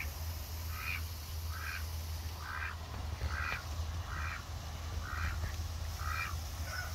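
Domestic duck quacking repeatedly: about nine short quacks, evenly spaced a little under a second apart.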